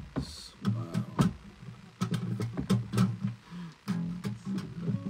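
Acoustic guitar played loosely: a few scattered plucked notes and short strums, with gaps between them.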